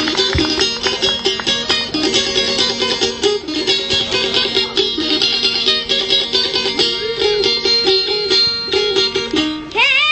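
Instrumental music: a fast plucked-string melody over a steady drone-like accompaniment. Near the end a child's singing voice comes in, sliding up onto a long held note.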